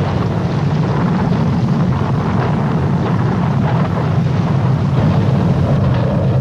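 Steady, loud, low rumble of the aircraft filming from overhead, mixed with wind noise on the microphone.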